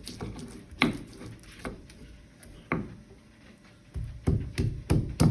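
Pestle striking and grinding spices in a mortar (Indonesian cobek and ulekan) while making a spice paste: a few separate knocks, then a quicker run of knocks near the end.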